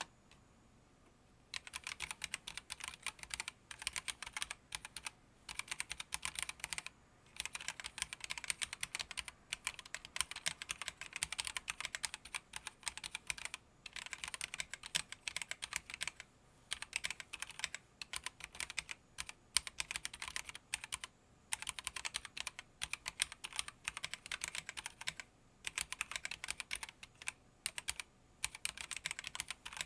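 Typing on a GamaKay K66 mechanical keyboard with red linear switches: fast runs of keystrokes broken by short pauses, starting about a second and a half in.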